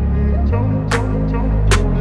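Background music with a heavy bass line and a sharp beat.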